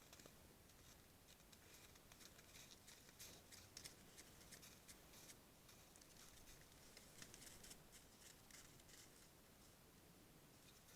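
Near silence over a steady faint hiss, with faint irregular ticks and crackles that come in two clusters, one through the middle and one somewhat later.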